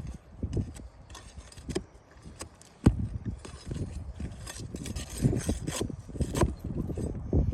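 Scraping and rubbing with irregular sharp knocks of hand tools working on asphalt roof shingles, prying the shingles and their nails loose.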